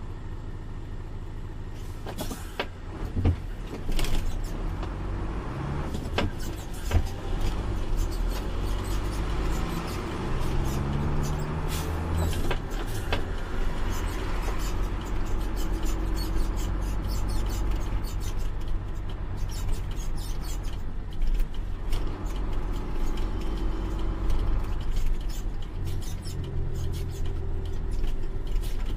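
Heavy truck's diesel engine heard from inside the cab, pulling away from a standstill and accelerating, its pitch rising and dropping back several times as it shifts up through the gears, then running steadier at low speed. Short sharp knocks and rattles from the cab come and go throughout.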